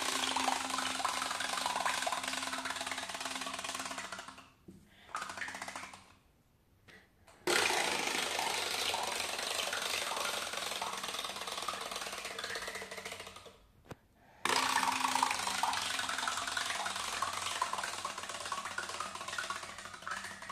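Pull-string wind-up frog bath toy's clockwork motor buzzing as the string winds back in, its legs paddling in bath water. It runs three times, each run starting suddenly and dying away after five or six seconds.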